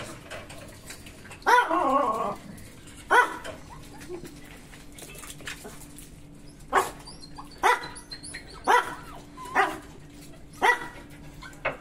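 Dogs yelping and barking: a long yelp that falls in pitch about a second and a half in, a single sharp bark soon after, then a run of six short barks about a second apart in the second half.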